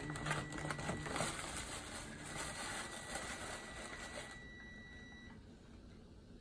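Tissue paper rustling and crinkling as a gift box is opened and unpacked, stopping about four seconds in.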